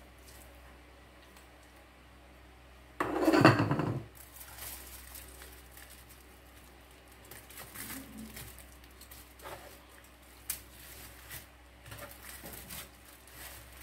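Hands rubbing butter over a raw turkey leg in a foil-lined pan: faint squishing and soft rustles and clicks of the parchment and foil. About three seconds in comes one louder rustling burst lasting about a second.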